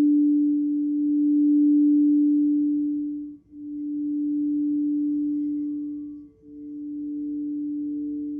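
Crystal singing bowl sounding a sustained low tone with a fainter higher overtone. Its loudness swells and fades in a slow pulse, dropping away almost completely twice, about every three seconds.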